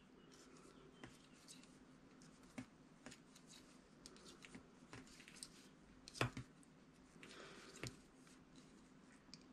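Knitting needles clicking faintly and irregularly as stitches are worked, with the loudest tap about six seconds in, over near-silent room tone.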